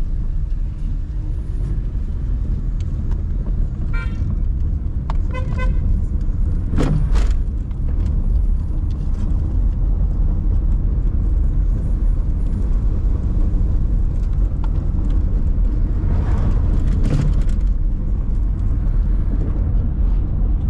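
Steady low road and engine rumble heard from inside a moving car. A vehicle horn gives two short toots about four and five and a half seconds in, and there is a single thump about seven seconds in.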